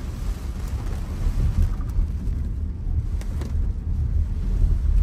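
Car cabin noise while driving through a storm on a wet, flooded road: an uneven low rumble of road, water and wind, with a few faint taps of rain on the windshield.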